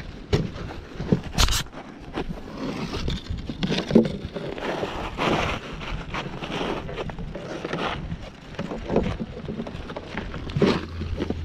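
Footsteps crunching and scuffing irregularly on a dry, gravelly dirt path, with the odd sharper knock.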